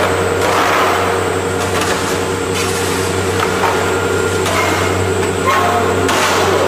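Cheese-processing machinery running with a steady hum over a constant mechanical noise.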